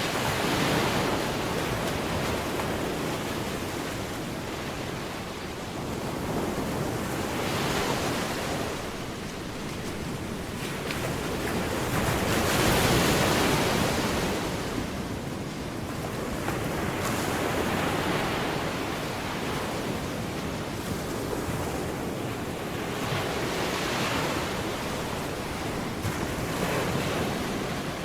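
Waves breaking and washing in: a rushing noise that swells and fades about every four to six seconds.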